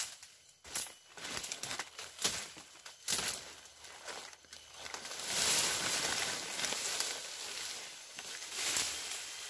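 Dry fallen leaves and twigs crackling and rustling as they are handled and scraped on the forest floor. There are many sharp snaps throughout, and a longer, louder stretch of rustling in the middle.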